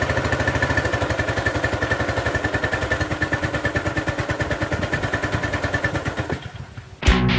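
Single-cylinder Briggs & Stratton 175cc overhead-valve engine on a Craftsman 2700 psi pressure washer running, its firing slowing as it winds down and dies away about six seconds in. Rock music with guitar starts near the end.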